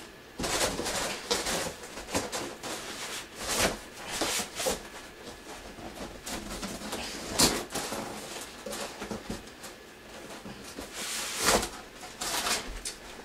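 Cardboard box and styrofoam packing rubbing and scraping in irregular bursts as a computer case is worked out of its packaging, with a few louder knocks or scrapes, three of them standing out.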